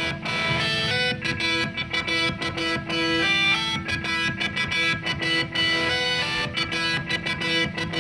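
Instrumental background music built on a quick run of plucked guitar notes.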